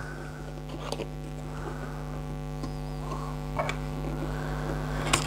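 Steady electrical mains hum, with light taps and rustles of a cardboard product box being handled and opened, and a sharper click near the end.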